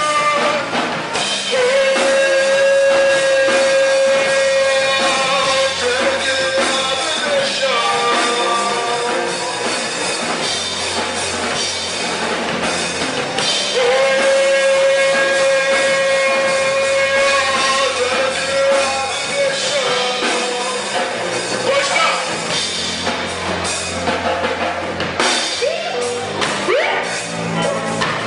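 Rock band playing live, with drum kit and guitars. A sung line holds two long notes, one a couple of seconds in and another about halfway through.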